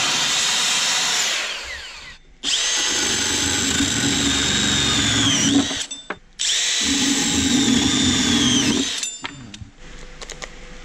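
A corded circular saw runs for about a second and a half and spins down. Then a corded drill with a hole saw bores into the wooden subwoofer box twice, each run about three seconds, its whine sagging at the end of each run.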